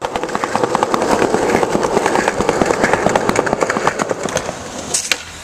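Skateboard wheels rolling over a concrete sidewalk: a loud, rough rumble studded with many small clicks and knocks, easing off a little near the end with two sharp clicks.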